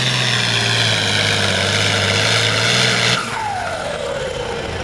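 International Harvester 1466 tractor's turbocharged six-cylinder diesel running at full throttle under load while pulling the weight-transfer sled, then the throttle is cut about three seconds in and the engine speed falls away.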